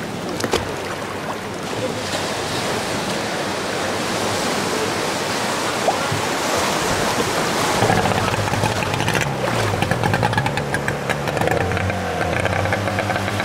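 Sea water washing and splashing around small fishing boats. From about eight seconds in, a boat engine can be heard running with a low, regular chug.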